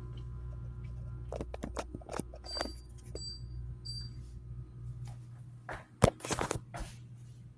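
Dishwasher pump motor running with a steady low hum, just after being started. Clicks and three short high beeps sound a few seconds in. The hum stops near the end, followed by a sharp knock and some clattering.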